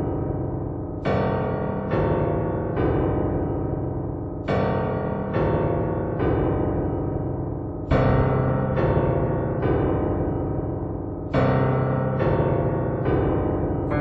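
Instrumental music on a piano-like keyboard: chords struck a little less than a second apart in repeating groups of three, each ringing on and fading before the next.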